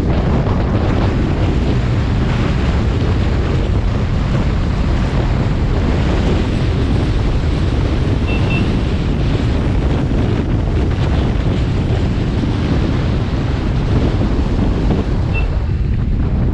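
Wind buffeting the microphone of a camera on a moving motorcycle: a steady, loud, low rushing rumble.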